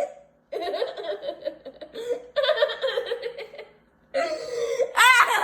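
A person laughing hard in three long bouts, with a high-pitched squeal near the end.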